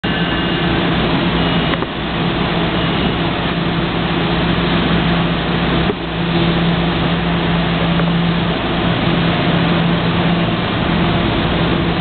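PL42AC diesel locomotive engine running with a steady low drone over a loud station din as the train starts to depart, with a couple of brief dips in level. The uploader calls the engine's sound strange or funny.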